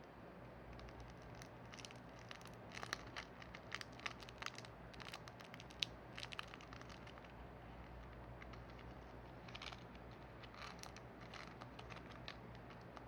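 Small plastic toy packaging being handled and opened by hand, with faint crinkling and crackling in two spells of quick clicks.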